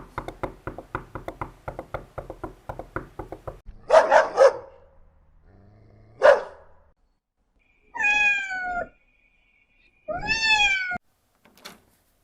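A quick run of taps, about six a second, then a few loud thuds, followed by a cat meowing twice, each meow about a second long, the first falling in pitch and the second rising then falling.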